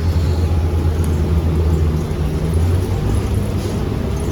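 Transit bus engine and drivetrain running, heard from inside the passenger cabin as a steady low rumble. The hum eases off a little about two seconds in.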